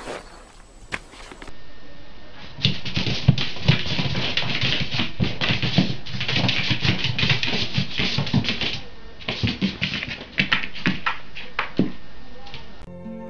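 A cat's claws scrabbling and clattering rapidly on a wooden floor as it dashes after a spot of light. It starts a few seconds in, goes on for about ten seconds with a couple of short breaks, and stops just before the end.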